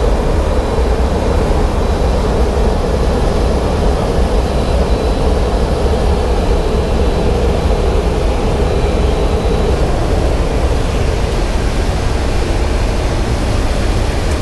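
Steady cabin noise of a C-17 Globemaster III in flight, heard from inside the aircraft: a loud, even rush of turbofan engine and airflow noise with a deep rumble underneath.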